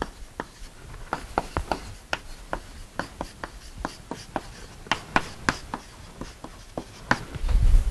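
Chalk writing on a blackboard: an irregular run of short, sharp taps and scratches, several a second, as words are chalked in.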